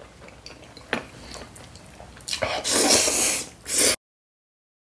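Loud slurping of black bean noodles sucked up through the lips: a sharp click about a second in, then one long slurp and a short one, after which the sound cuts off.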